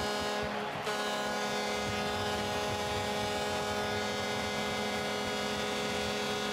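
Arena goal horn blaring in a long, steady multi-tone blast after a home goal, with a brief break about a second in.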